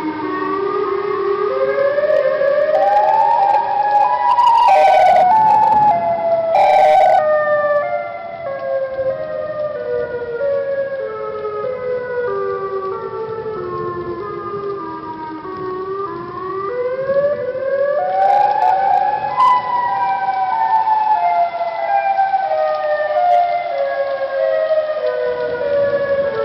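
Tornado warning siren wailing: several tones together climb in steps over about four seconds, then sink slowly for about twelve seconds before climbing again and starting another fall. Two sharp cracks sound near the loudest part, about five and seven seconds in.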